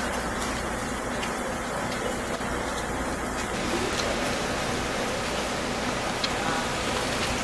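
Heavy rain pouring down, a steady even hiss with a few faint sharp ticks, growing brighter a little after three seconds in.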